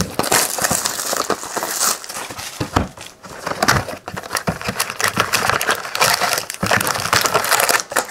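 Clear plastic shrink wrap crinkling as it is torn and pulled off a cardboard box of trading cards, then the box being opened and its foil card packs handled, with many small crackles and clicks throughout.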